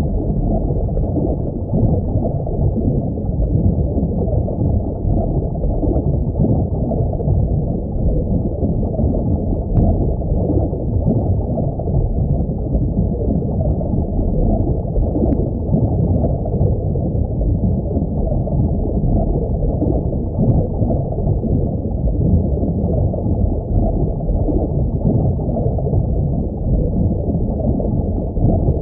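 Steady, muffled underwater rumble and gurgle of an aquarium, without pauses or rhythm.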